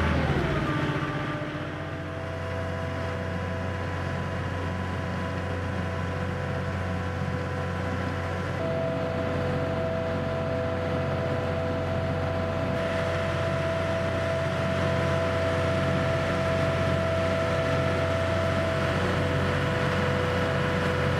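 A passenger boat's engine running steadily under way: a constant low drone with a steady whine above it.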